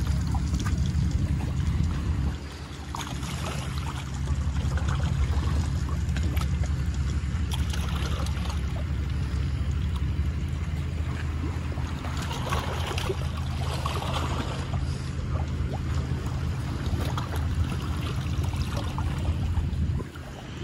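A motor hums steadily at a low pitch. It drops briefly about two seconds in, then runs on until it dips again near the end.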